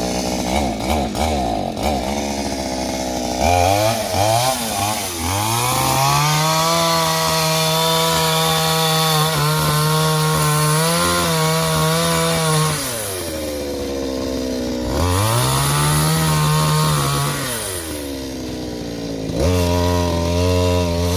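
Two-stroke chainsaw cutting through a coconut palm trunk: the engine idles, revs up a few seconds in and holds a steady high note under cut for several seconds, then drops back and revs up again twice.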